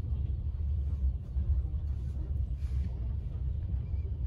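Low, steady rumble of a moving passenger train, heard from inside a sleeping compartment.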